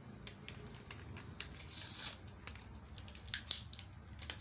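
Plastic packaging crinkling and crackling irregularly as small hands try to tear the packet open, with a louder rustle about two seconds in and a sharp crack near three and a half seconds. The packet is hard to open.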